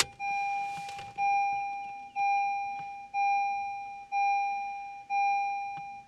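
A 2012 Honda Civic's dashboard warning chime, sounding right after the ignition key is turned. It is a steady electronic ding that repeats about once a second, each note fading before the next.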